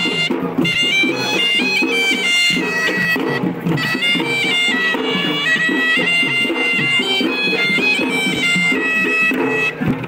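Sri Lankan procession music: a shrill reed pipe plays a melody that moves in steps, over steady traditional drumming.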